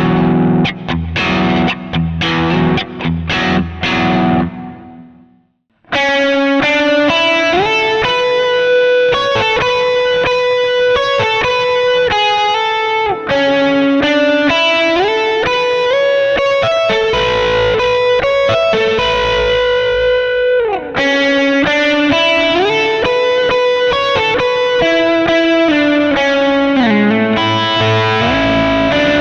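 Overdriven electric guitar through an amp profile recreating a Bad Cat Hot Cat 40: chopped, muted chords for the first few seconds that fade out. About six seconds in, a new passage starts, with sustained single-note lines and many sliding pitch glides.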